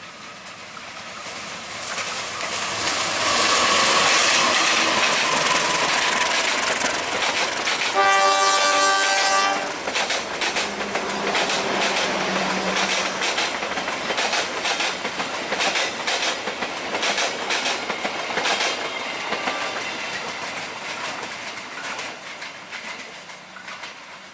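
A CC201 diesel-electric locomotive hauls a passenger train past at speed, and its noise swells as it approaches. About eight seconds in, a train horn sounds once for about a second and a half. The coaches then clatter past with a steady clickety-clack of wheels over the rail joints, fading near the end.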